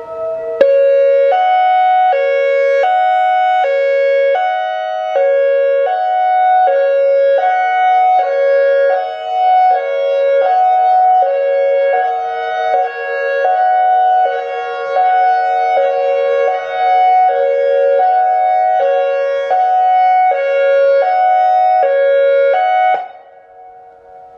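ACA Alertronic AR-1600 electronic outdoor warning siren sounding its hi-lo signal, alternating between two tones about every 0.7 seconds. It cuts off abruptly near the end.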